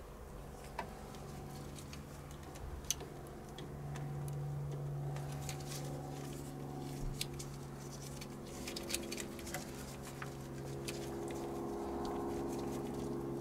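Soft scattered clicks and wet dabbing as soapy water is worked onto the rubber grommet of an accelerator-cable adjuster, more frequent after about five seconds. A steady low hum runs underneath.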